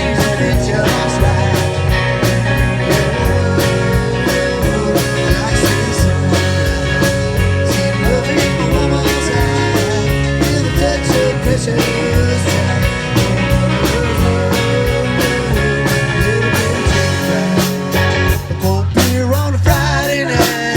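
Live country-rock band playing an instrumental break with a steady drum beat, bass and guitar.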